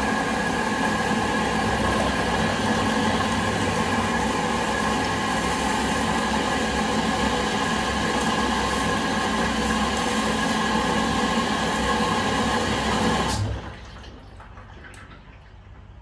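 Front-loading washing machine running with water rushing through it, a steady hiss with a hum that cuts off suddenly about thirteen and a half seconds in, leaving only a faint background.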